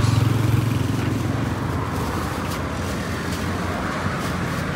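Street traffic: a motor vehicle's engine runs close by, its low hum loudest in the first second and then easing, over steady road noise.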